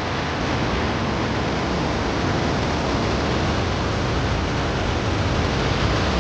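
Steady rush of water pouring over the Lechfall, the waterfall on the Lech river, as an even, unbroken noise.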